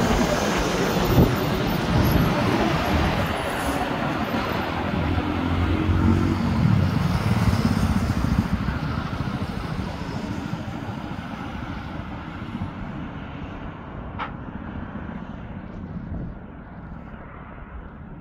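Heavy diesel trucks and buses passing close on a highway: loud engine drone and tyre noise at first, fading steadily as the convoy pulls away.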